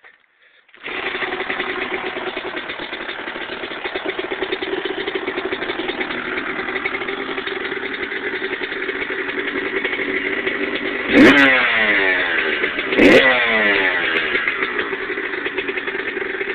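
Kawasaki KX125 125cc two-stroke single-cylinder dirt bike engine, fitted with an FMF Fatty expansion chamber and a Pro Circuit shorty silencer, starting about a second in and then running steadily. Near the end it is revved twice, the pitch rising sharply and falling back each time.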